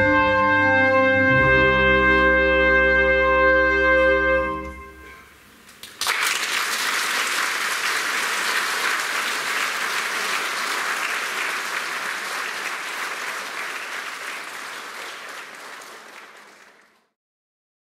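Wind band's held final chord dies away about four and a half seconds in. After a short pause the audience bursts into applause, which fades out near the end.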